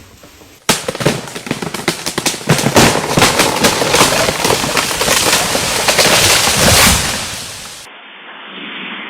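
A big tree coming down in strong wind: loud cracking and crackling of wood and branches breaking, a dense run of sharp cracks lasting about seven seconds. Near the end it gives way to quieter, muffled outdoor noise.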